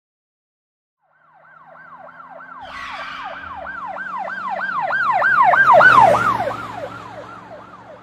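Police car siren in a fast yelp, about three rising-and-falling wails a second, with an engine hum beneath. It comes in about a second in, grows louder to a peak about six seconds in, dips slightly in pitch as it goes past, then fades.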